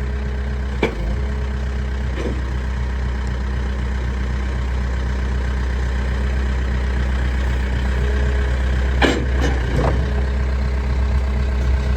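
Case 580 Super M backhoe loader's 95-horsepower turbo diesel engine running steadily, with a few short sharp knocks, one about a second in and two near the end.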